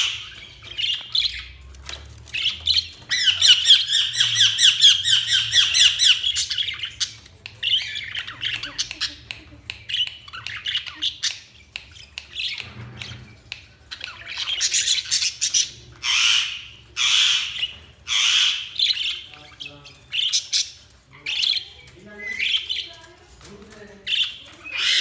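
Budgerigars chirping and squawking: a long, fast warbling chatter of rapid repeated notes a few seconds in, then single harsh calls about once a second.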